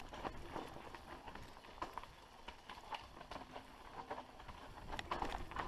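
Mountain bike rolling down a rocky dirt trail: tyres crunching over loose stones and the bike rattling, heard as irregular clicks and taps that grow louder near the end.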